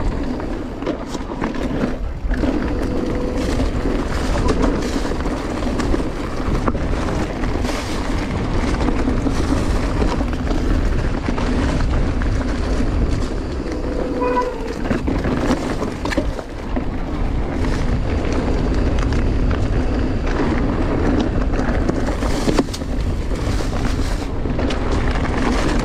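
Giant Reign E+1 e-mountain bike ridden along gravel and a leaf-covered dirt trail: a steady rushing noise of wind and rolling tyres, with scattered clicks and rattles from the bike over the rough ground.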